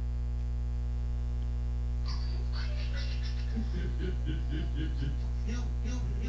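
Steady low electrical hum, with a run of rapid, short cackling sounds starting about two seconds in.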